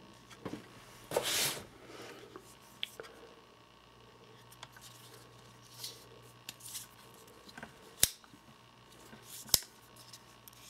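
Lockback pocket knife handled close up: a short rub about a second in, scattered light clicks, and two sharp clicks near the end.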